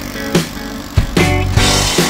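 Background music with drum hits over sustained instrumental notes.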